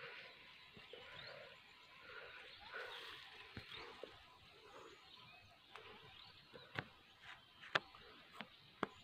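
Quiet outdoor scrub ambience: faint rustling of dry brush, with a few sharp twig snaps or cracks in the last few seconds and faint bird chirps.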